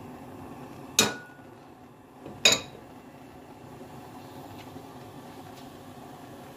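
Two sharp clinks of a bowl knocking against the rim of a nonstick frying pan as chopped onion is tipped into the oil, about a second and a half apart, the first with a brief ring.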